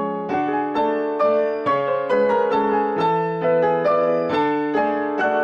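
Background music: a solo piano piece, notes struck in a steady, gentle rhythm.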